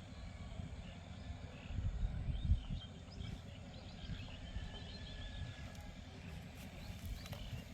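Outdoor rural ambience: a steady low rumble with a few soft thumps about two seconds in, and faint high chirps, like small birds, in the middle.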